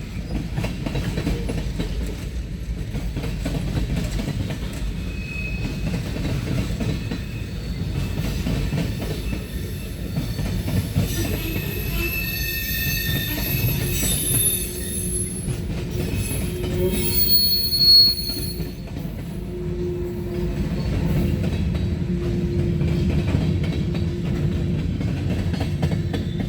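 Freight cars of a Norfolk Southern manifest train rolling past with a steady low rumble. Wheels squeal in several high tones for several seconds near the middle, loudest toward the end of that stretch.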